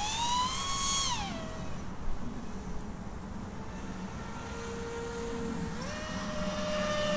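Electric flying wing's brushless motor (T-Motor F80 2500 KV) and three-bladed prop whining as it flies overhead. The pitch rises, then drops about a second in, stays lower and fainter through the middle, and climbs again near the end.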